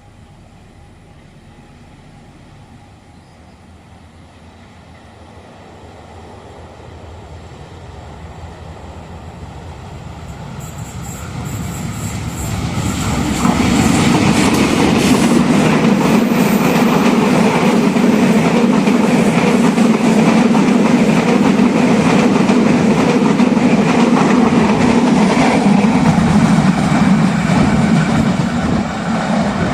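A train approaching and passing close by on the railway line. It grows louder over the first dozen seconds, stays loud while it goes by, and eases slightly near the end.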